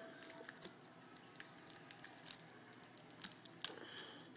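Faint, scattered crinkles and small clicks of a foil trading-card booster pack and its cards being handled.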